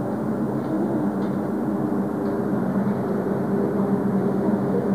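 A steady mechanical hum that holds one low pitch throughout, with a few faint ticks.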